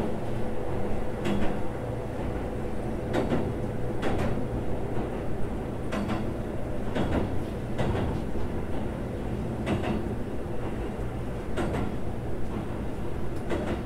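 Running sound of a Keikyu 600 series electric train heard on board: a steady rumble of wheels on rail, with a sharp click-clack every second or two.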